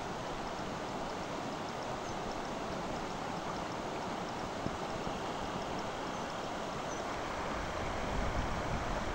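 Floodwater rushing steadily across a flooded dirt road, fast muddy water spilling over in a continuous torrent. A low rumble rises near the end.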